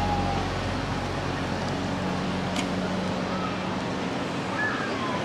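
Open-air fairground background noise with a low steady mechanical hum that fades out about four seconds in.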